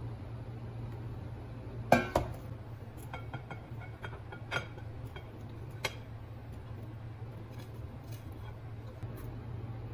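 A metal fork clinking and scraping against ceramic plates as food is slid from one plate onto another, with a sharp clink about two seconds in, a second right after, and lighter ticks over the next few seconds. A steady low hum runs underneath.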